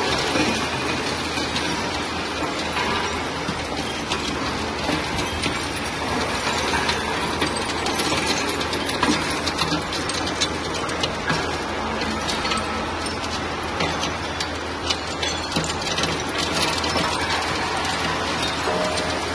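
Scrap-processing conveyor line running: a steady machinery hum under a constant dense clatter of broken engine metal rattling along the belts.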